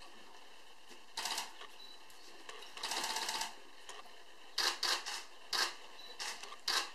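Camera shutters firing in rapid bursts of clicks, about six bursts. The longest runs a little under a second, at roughly ten clicks a second.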